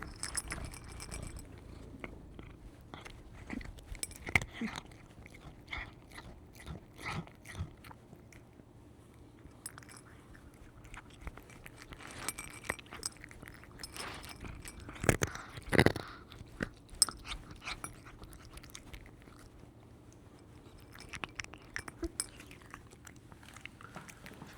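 A cat chewing its food, with irregular bouts of short clicks and crunches between quieter pauses; the loudest bout comes a little past the middle.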